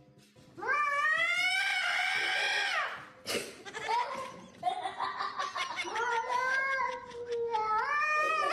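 A cat yowling in long, drawn-out calls that rise and fall in pitch: one long call starting about half a second in, then a string of wavering calls from about five seconds on.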